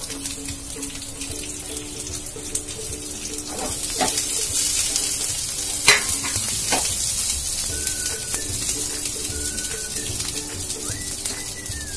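Onion pieces sizzling in hot oil in a non-stick frying pan, the frying hiss growing louder about four seconds in as more pieces go in. A few sharp knocks from the pieces being dropped into the pan, the loudest about six seconds in.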